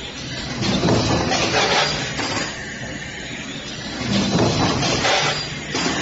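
Stamping press running in a metal workshop: a loud, noisy mechanical din over a low hum. It swells twice, about a second in and again just past four seconds.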